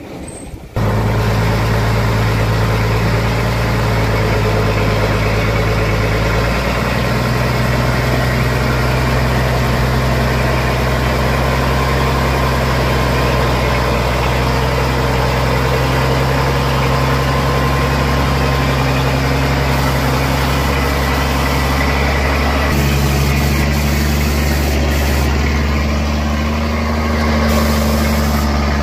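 Truck engine running at a steady speed. Its note starts abruptly and steps up slightly twice, about six seconds in and again about three quarters of the way through.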